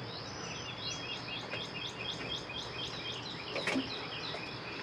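A bird chirping in a quick, even series of short high notes, about four a second, over a steady high-pitched whine. There is one short knock about three and a half seconds in.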